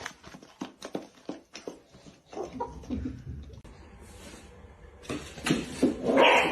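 A dog vocalizing, its loudest sounds near the end, after a series of short clicks and taps in the first two seconds.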